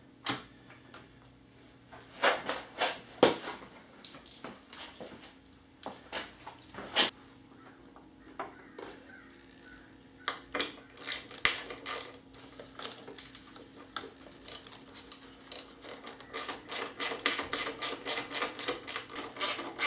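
Hand ratchet clicking as bolts are run down, with scattered clinks and knocks of tools and metal parts; the ratcheting settles into a quick even run of about four clicks a second near the end.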